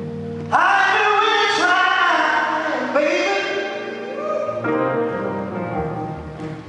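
Male soul singer singing live into a handheld microphone over a band's accompaniment. The voice comes in about half a second in with long held notes that slide in pitch.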